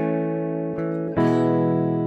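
Acoustic guitar strumming slow chords that ring out, with a new chord struck a little over a second in.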